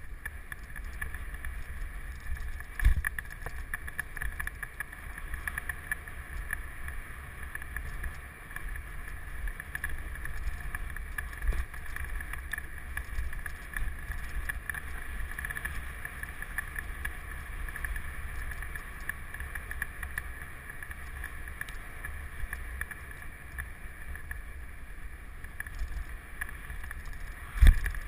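Mountain bike descending a dirt trail, heard from a camera mounted on the bike: steady rumble of the tyres and wind on the microphone, with a few sharp thumps as the bike hits bumps, the strongest about three seconds in and just before the end.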